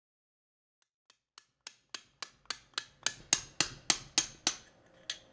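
Hand hammer striking a chisel into a limestone block in steady, evenly spaced taps, about three or four a second. They start faint about a second in and grow louder.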